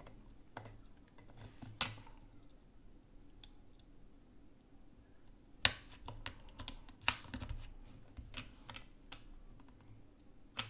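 Irregular small clicks and taps of a replacement cooling fan and its cable being handled and pressed into place in an opened Nintendo Switch, plastic and metal parts clicking against each other. The sharpest click comes about two seconds in, with more around six and seven seconds.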